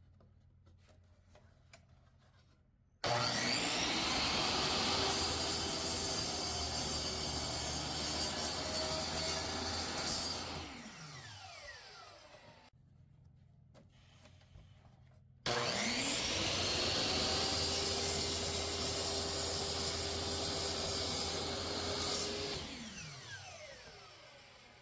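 Power saw cutting oak for a knife handle, run twice. Each time the motor starts with a rising whine, runs for about seven seconds while cutting, then winds down with falling pitch after it is switched off.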